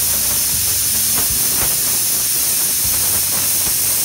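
Pressure cooker whistling: steam forcing up the weight valve on the lid and venting as one loud, steady hiss. This is one of the whistles counted while cooking dal.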